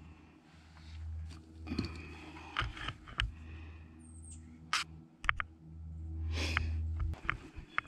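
A handheld camera being moved about in a wooden chicken coop: a low rumble, rustling, and several sharp clicks and knocks, with a brief high chirp about four seconds in.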